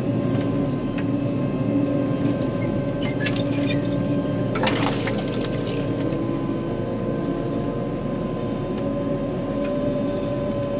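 Large farm machine's diesel engine running steadily under load while it drives through a water crossing, with a brief louder rushing noise about five seconds in.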